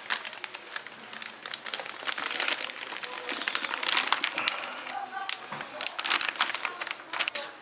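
Crinkling and many short clicks of handling, with voices in the background.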